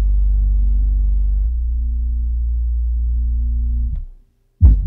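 Bass-heavy music played through a Tonewinner D2000 12-inch ported subwoofer: long, deep held bass notes that change pitch about a second and a half in and cut off about four seconds in. After a brief silence, a new passage of pulsing bass hits starts near the end.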